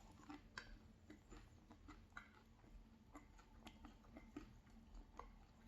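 Near silence with faint, scattered soft clicks of quiet chewing, the mouth working on a cheese pancake.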